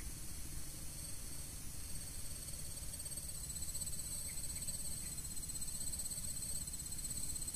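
Insects trilling steadily in a shrill chorus at several high pitches, over a low rumble.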